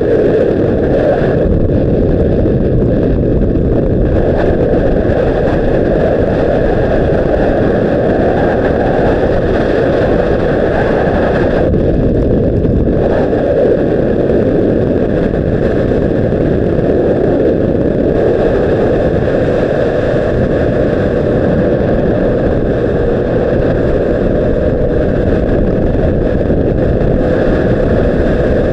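2006 Honda CBR600RR's inline-four engine running steadily, with no clear revving, under wind noise on the microphone.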